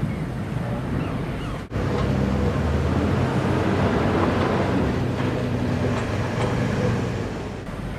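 Heavy diesel truck engine running with a steady low drone, broken briefly about a second and a half in, then carrying on a little louder.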